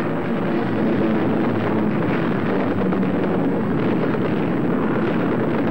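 Old newsreel soundtrack of an air raid: a steady, dense rumble of bombing, with no single blast standing out.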